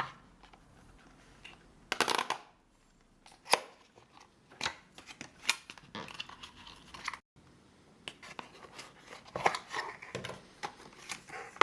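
Packaging of an Apple Lightning to USB cable being torn open and handled by hand: a string of short tearing, crackling and scraping sounds, the loudest tear about two seconds in.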